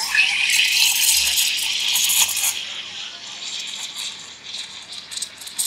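Espresso machine steam wand steaming milk in a stainless steel pitcher: a sudden loud hiss full of crackly sputtering, easing after about two and a half seconds into a quieter, crackling hiss. The crackle is the sound of the wand tip near the milk's surface drawing in air to froth it.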